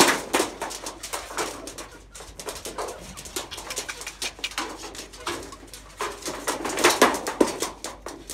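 Chickens clucking softly while feeding, with many short sharp taps and scrapes, loudest right at the start and again about seven seconds in.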